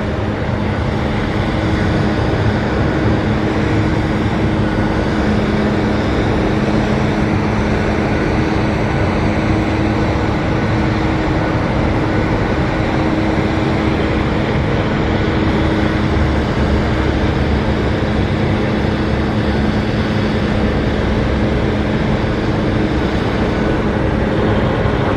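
Steady drone of a machine running at constant speed, a low even hum over a rushing noise that does not change.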